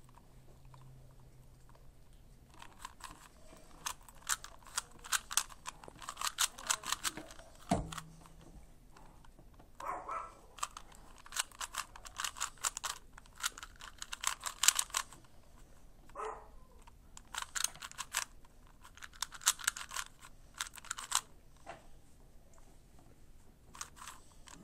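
3x3x3 Rubik's Cube turned fast in the hands: quick runs of plastic clicking as the layers snap round, in bursts with short pauses between.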